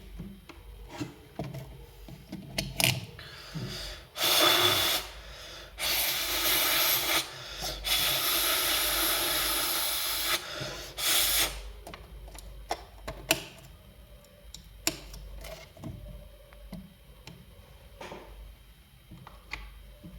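Hiss of blown air in four bursts of one to two seconds each, between small clicks and taps of tools.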